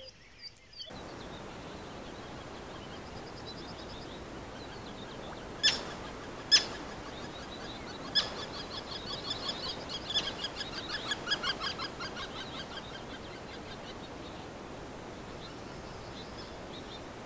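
Bird song, a run of quick repeated chirping notes over a steady background hiss, with two sharp clicks about six seconds in.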